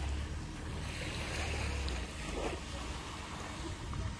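Wind buffeting the microphone by the sea, a low rumble that eases about two seconds in, over the wash of surf.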